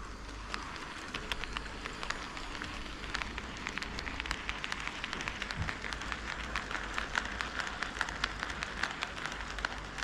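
HO-scale model train running on sectional track. A steady rolling hiss carries many sharp, irregular clicks from the wheels crossing rail joints, growing denser from about three seconds in.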